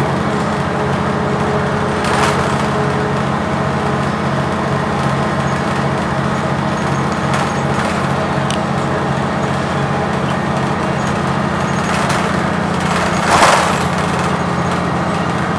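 Cummins Westport ISL-G natural-gas engine of a Blue Bird transit bus running steadily, heard from inside the bus as a low hum with a regular pulse through the middle. A short burst of hiss about 13 seconds in.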